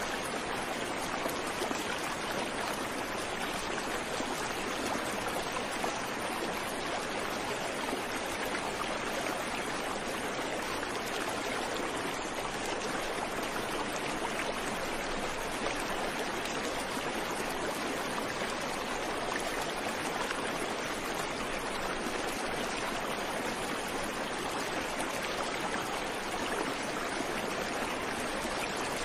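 Steady rush of a fast-flowing river: an even wash of running water that keeps on without pauses or changes.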